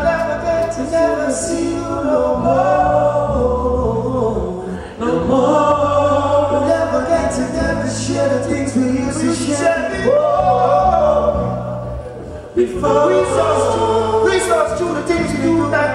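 Men singing into microphones over amplified backing music with a steady bass line, several voices together like a group singing along. The singing drops out briefly twice.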